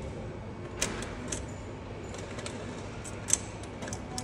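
Scattered sharp clicks and clacks from the ticket machine's mechanism while it checks and processes the seat reservation, the loudest a little past three seconds in, over a steady background hum.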